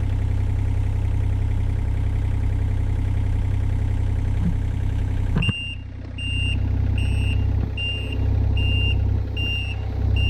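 Heavy machinery engine running steadily. About halfway through the sound changes abruptly and a backup alarm starts beeping evenly, roughly three beeps every two seconds, over the engine.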